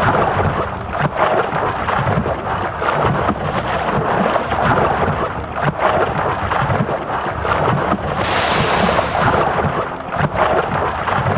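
Water splashing and churning sound effect, with a short stretch of added high hiss about eight seconds in.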